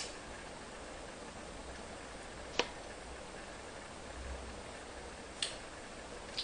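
A fingertip pressed into an ear canal full of water, making a few short, sharp wet clicks spaced a second or more apart over a steady hiss.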